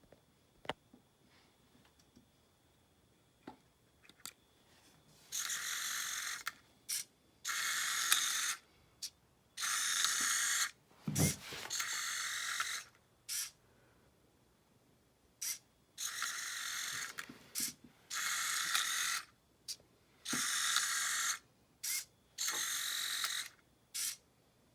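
Small electric motors of a robot car buzzing in about eight separate bursts of roughly a second each, starting and stopping in turn, with clicks between the bursts and one low thump near the middle.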